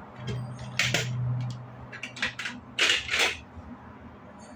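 Plastic Lego bricks clicking and clattering against each other and the countertop as a brick is handled and set onto a wheeled base, a string of sharp clicks with the loudest pair about three seconds in.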